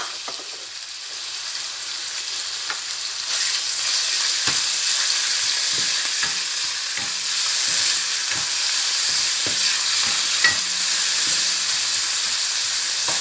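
Raw chicken pieces frying with minced garlic in hot oil, a steady sizzle that grows louder a few seconds in. A spatula stirs them, scraping and knocking against the pan about once or twice a second from about four seconds in.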